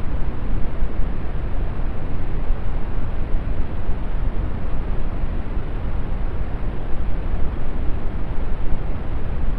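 Steady brown noise: an even, deep rumbling hiss, heaviest in the bass and thinning toward the treble, unchanging throughout.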